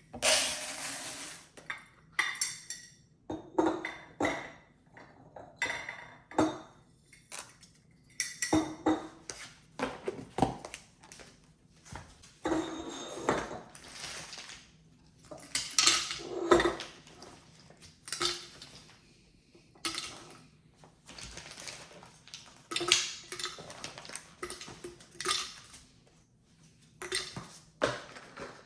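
Hard items being handled and set down, with irregular clatters, knocks and clinks and short rustling between them, typical of unpacking and setting up a coffee machine and its capsules.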